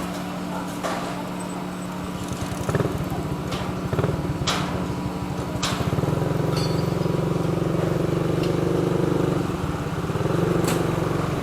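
Street traffic: a motor vehicle engine with a fast pulse, like a motorcycle, running close by and getting louder about six seconds in, over a steady low hum. A few sharp clicks come through.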